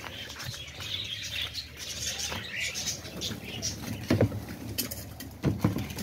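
Light pattering and scratching with high chirps of small caged birds, and a couple of louder knocks in the second half.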